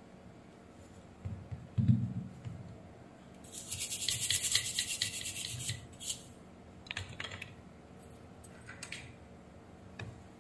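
A low knock about two seconds in. Then a soldering iron sizzles and crackles on flux and solder for about two seconds while it clears the pads of a removed, shorted PFC power MOSFET. Shorter crackles follow, and there is a sharp tick near the end.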